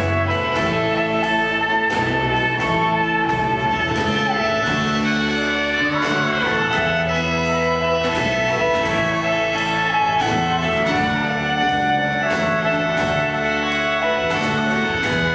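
Folk band playing live: fiddle, acoustic and electric guitars, bass guitar and drums.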